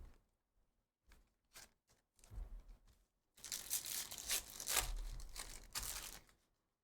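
A trading-card pack wrapper being torn open and crinkled by hand. There are a few short rustles first, then a longer stretch of tearing and crinkling from about halfway in that stops shortly before the end.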